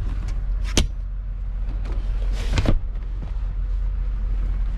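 Steady low rumble in the cabin of a 2003 Cadillac DeVille, with one sharp click about a second in and a short rustling clatter past the two-second mark as the rear-seat armrest and trunk pass-through are handled.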